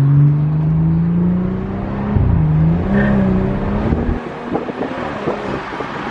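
BMW 340i's turbocharged inline-six pulling hard under acceleration. Its note dips about two seconds in as it shifts up, climbs again, then drops away about four seconds in as the throttle is lifted, leaving rough road and drivetrain noise.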